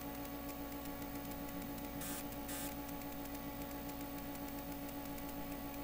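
Steady electrical hum and hiss from powered-on bench test equipment, several fixed tones held level, with a brief rise in hiss about two seconds in.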